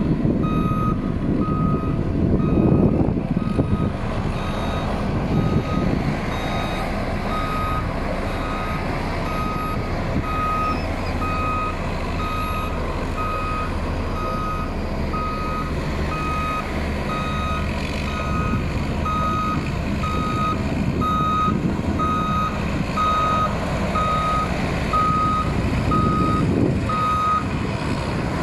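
Backup alarm of heavy road-building machinery beeping steadily at one pitch, about one beep a second, over the low running of the machines' engines. The beeping stops shortly before the end.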